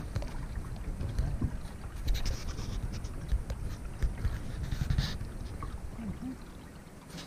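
Canoe being paddled on a lake: paddle strokes swishing and dripping in the water, with scattered small splashes over a steady low rumble.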